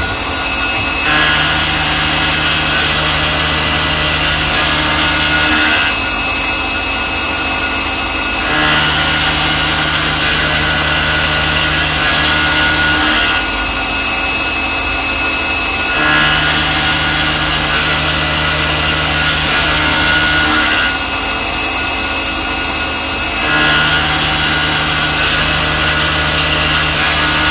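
Mazak Integrex 35 mill-turn machine milling: steady machine running with a high hiss, and a cycle that repeats about every seven and a half seconds, a low hum for about four and a half seconds, then about three seconds without it, as the tool makes pass after pass.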